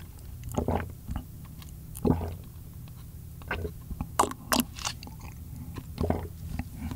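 Close-miked sipping and swallowing of beef radish broth from a small plastic cup, with short wet mouth sounds at irregular intervals.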